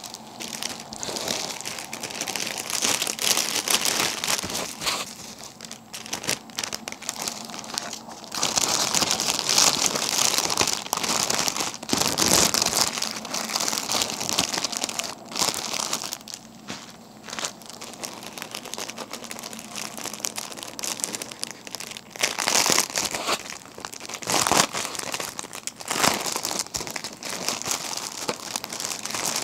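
Small plastic Ziploc bags of diamond-painting drills crinkling and rustling as they are handled, in irregular bursts that come and go.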